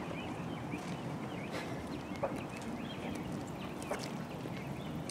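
Quiet outdoor background noise, with faint short high-pitched sounds scattered through it and a couple of light clicks.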